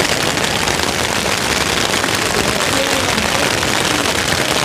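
Heavy rain pouring down: a steady, dense hiss of falling drops.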